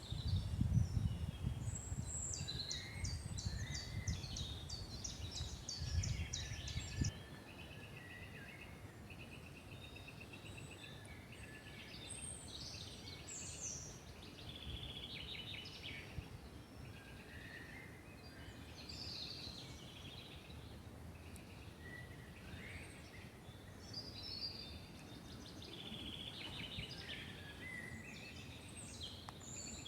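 Several songbirds singing and calling, with trills and quickly repeated notes from more than one bird. For the first seven seconds a low rumble sits beneath them and then stops abruptly.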